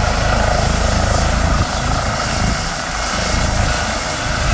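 Eurocopter EC135 air ambulance helicopter running on the ground with its main rotor turning: a loud, steady high turbine whine over a low rotor rumble.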